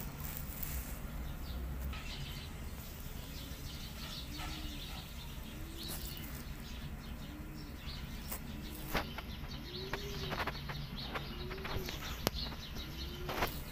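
Birds chirping, with a soft low cooing call rising and falling that repeats about once a second from about four seconds in, over a steady low hum.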